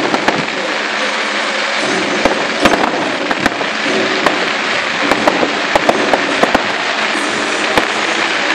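Fireworks going off in a display: a rapid, irregular run of sharp pops and bangs over a continuous hiss.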